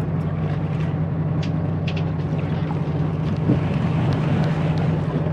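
A fishing boat's engine running steadily, a low even hum, under a haze of wind and water noise.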